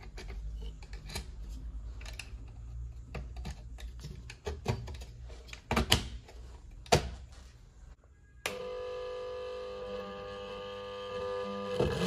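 Small clicks and taps of hands connecting thin copper coil wires and LED leads on a wooden coil plate, with a few louder knocks about five to seven seconds in. About eight and a half seconds in, a steady hum with several held tones starts abruptly as the electric motor spins the magnet rotor under the coils.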